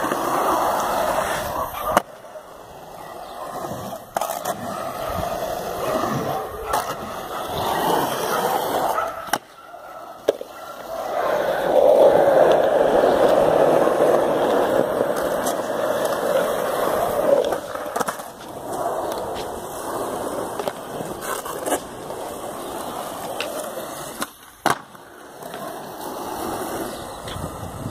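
Skateboard wheels rolling over concrete, a continuous gritty rumble that swells and fades as the board passes, broken several times by sharp clacks of the board striking the ground.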